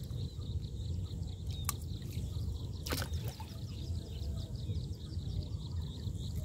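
Water sloshing against a wooden boat as a net fish trap is hauled up alongside, under a steady low rumble, with two sharp knocks a little over a second apart. A high chirp repeats quickly, about three times a second.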